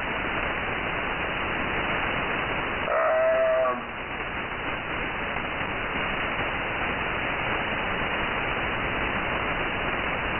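Steady hiss and static from a shortwave receiver in upper-sideband mode, cut off above about 3 kHz. About three seconds in, a short wavering pitched sound lasting under a second rises above the hiss.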